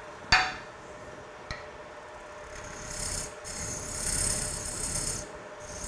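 A dovetail scraper cutting the tenon on the foot of a spinning Bradford pear bowl on a Robust American Beauty lathe: a hissing scrape from about two and a half to five seconds in, over the lathe's steady hum. A single sharp knock about a third of a second in is the loudest sound, followed by a lighter tap.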